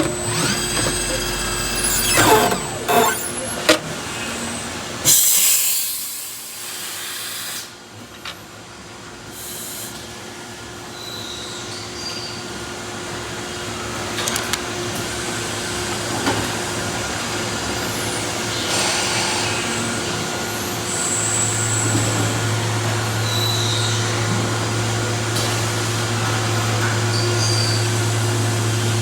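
CNC machine running while machining a pipe nipple adaptor, with a few sharp knocks near the start and a short loud rush of noise about five seconds in. A steady low hum sets in about two-thirds of the way through and holds.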